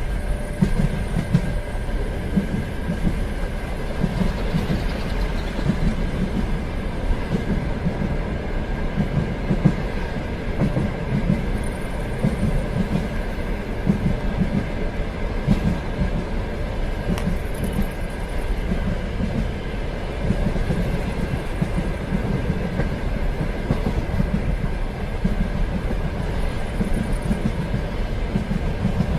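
Train running along its rails: a steady rumble with a repeated clickety-clack of the wheels, and a faint steady high hum.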